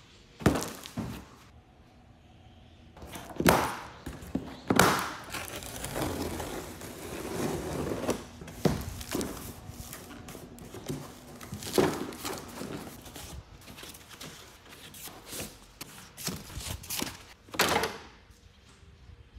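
A long cardboard box being handled and opened on a table saw top: several sharp thunks as the box is set down and knocked about, with rustling and scraping of the cardboard flaps and packing in between. Near the end a sharp knock as the folded plastic-and-metal sawhorse is lifted out against the box.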